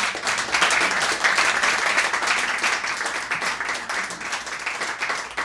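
Audience applauding, many hands clapping at once; the applause thins out towards the end.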